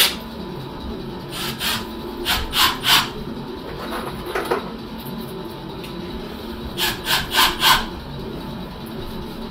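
Quick rasping strokes of a hand tool worked against the copper pipework. They come in a group of four about two seconds in, a single stroke near the middle, and another group of four about seven seconds in, over a steady background hum.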